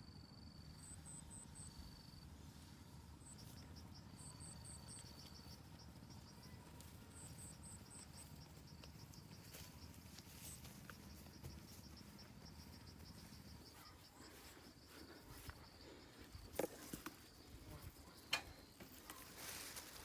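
Faint insects chirping in short, repeated pulsed trills, some higher-pitched than others. A few soft knocks and rustles come in the last few seconds.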